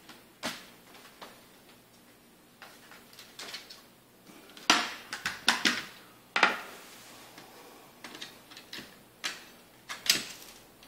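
Irregular clicks and clacks of a screwdriver and plastic and metal laptop parts being handled during disassembly, with a few sharp louder clacks about halfway through and again near the end.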